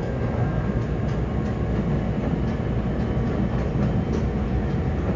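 Yokohama Municipal Subway 4000-series train running through a tunnel, heard inside the car: a steady low rumble of wheels on rail and car body, with a few faint clicks.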